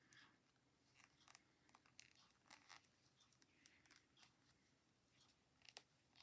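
Near silence with faint, irregular clicks and scratches of knitting needles working stitches and yarn.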